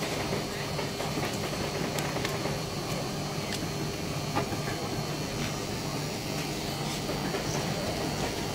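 Steady low mechanical hum, with a few sharp metal clicks and scrapes of steel spatulas on the rolled ice cream cold plate.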